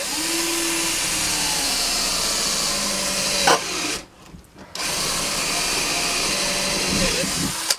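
Power drill drilling out a rivet in a gauntlet's metal plate. It runs steadily for about four seconds with a brief sharp snap near the end of that run, stops for under a second, then runs again for about three seconds.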